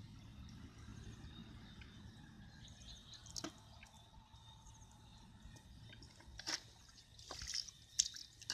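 Faint water dripping and small splashes, with a few sharper drips or splashes in the second half.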